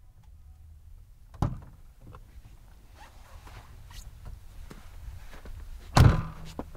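A person climbing out of a Jeep Wrangler onto snow: scattered crunching footsteps and clothing rustle, a sharp knock about a second and a half in, and a louder, heavier thump about six seconds in, the door shutting.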